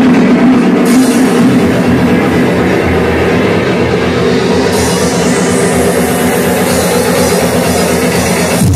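House music from a DJ set playing loud over a club sound system. The highs open up about a second in and again around five seconds in, and the bass comes back in just at the end.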